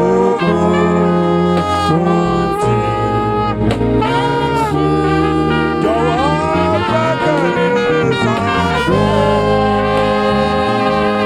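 Gospel band music: a saxophone plays a melody with scooped and bending notes over a bass line and light percussion.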